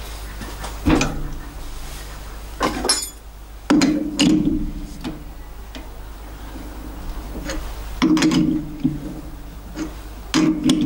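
A die nut cutting a quarter-inch, 20-threads-per-inch thread on steel round stock, with the lathe chuck turned by hand in short strokes: about five bursts of clunks and squeaky scraping over a steady low hum.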